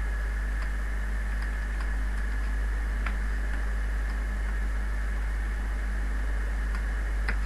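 Computer keyboard keys clicking a few times, scattered, as code is typed, over a steady low hum and hiss with a thin high whine from the recording setup.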